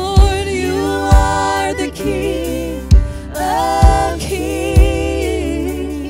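Live contemporary worship music: two women's voices singing with vibrato over electric bass. Five deep thumps on the beat are the loudest sounds.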